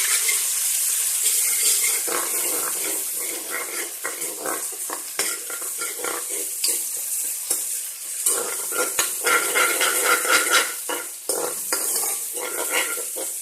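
Onions, chillies and ginger-garlic paste sizzling in hot oil in a pan, with a spoon stirring and scraping against the pan in a string of clicks.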